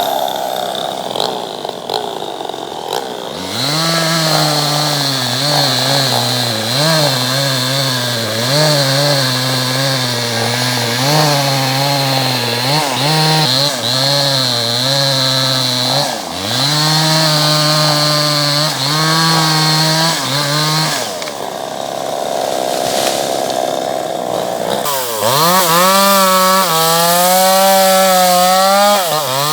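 Two-stroke chainsaw running under load, cutting wood, its engine note sagging and recovering as the chain bites. Twice the steady note breaks into a lower, rougher sound for a few seconds: at the start and again a little past twenty seconds in.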